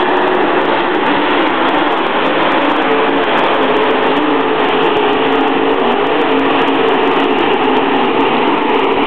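Dirt late model race cars' V8 engines at racing speed around the dirt oval, a loud steady drone whose engine notes shift slightly as the cars circulate.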